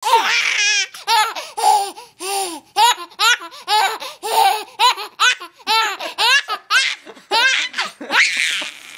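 A 7-month-old baby boy laughing hard, in a long run of short high-pitched bursts about two a second, ending in a breathier burst near the end.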